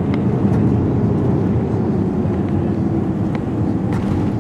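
Jet airliner cabin noise heard from a window seat during landing: a steady, low rumble of engines and rushing air that eases slightly over a few seconds.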